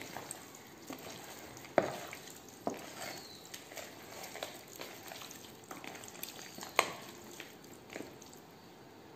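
Bare hands squeezing and turning raw chicken pieces coated in wet spice paste in a plastic bowl: irregular squelches and soft slaps, with two sharper slaps about two seconds and seven seconds in.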